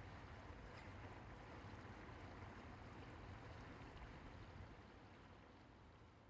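Near silence: a faint, steady rushing noise that fades out toward the end.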